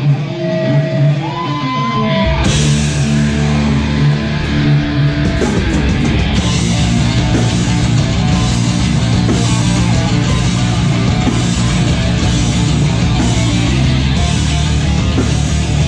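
Metalcore band playing live: electric guitar alone at first, then about two seconds in the drums, bass and distorted guitars come in together and keep going, with steady cymbal hits.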